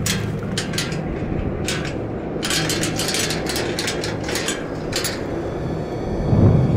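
Hurried footsteps, sharp irregular steps up to about four a second, stopping about five seconds in, then a low boom near the end.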